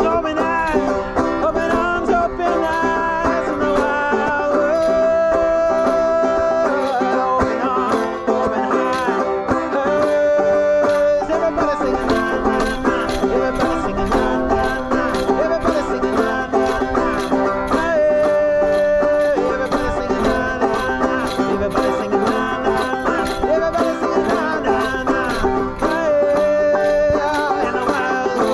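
Banjo music: a steady stream of quickly plucked notes, with a few longer held notes sounding over it.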